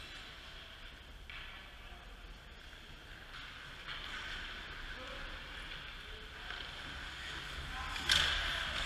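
Ice skate blades carving and scraping on rink ice, a hiss that grows louder as the skaters come toward the net, with a sudden much louder burst about eight seconds in.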